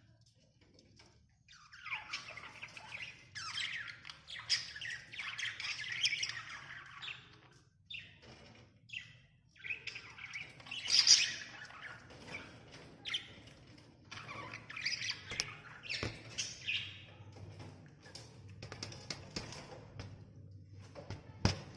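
Budgerigars chirping and squawking in irregular, broken bursts, the loudest just past halfway.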